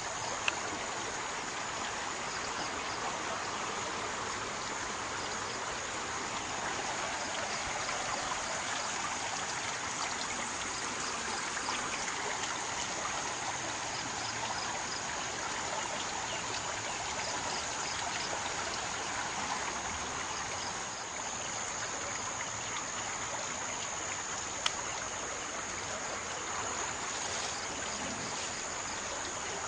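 Swollen floodwater of the Daduru Oya river rushing steadily past, an even rush of water. Two sharp clicks stand out, about half a second in and near the end.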